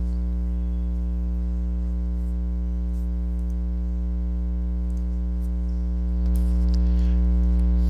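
Steady electrical mains hum with a stack of overtones and faint hiss, getting slightly louder about six seconds in.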